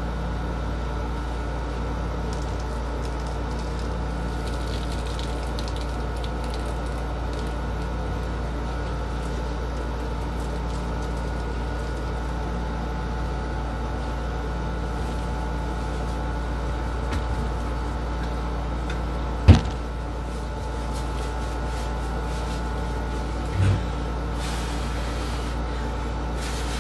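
Steady mechanical hum from a running appliance, heavy in the low end with several fixed tones. A sharp knock comes about three-quarters of the way through, and a softer one a few seconds later.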